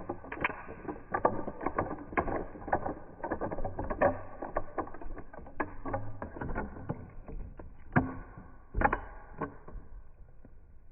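Marbles rolling down a marble run track: a low rolling rumble with a quick, irregular run of clicks and knocks as they strike the track and one another. It dies away near the end.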